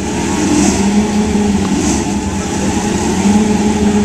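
V8 Supercar race engines running, a loud steady drone that swells and fades slightly in pitch and strength.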